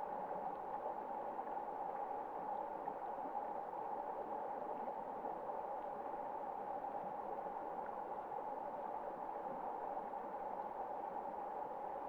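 Shallow rocky mountain stream running over stones: a steady rush of flowing water.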